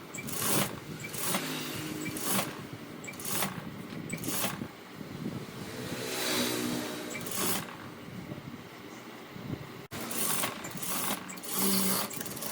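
Electric sewing machine running in short bursts about a second apart, with a longer run near the middle, as a line of stitching is sewn along a blouse neckline.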